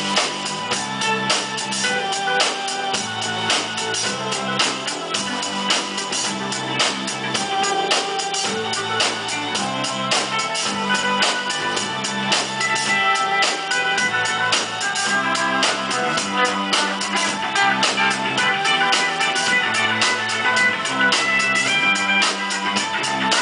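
Indie rock band playing live: electric guitar, keyboard and drum kit in an instrumental stretch without singing, over a steady beat.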